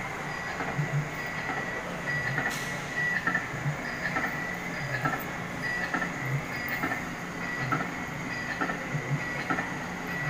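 Coin-operated kiddie ride running: a steady mechanical whine with repeated uneven knocks and rattles, about one or two a second.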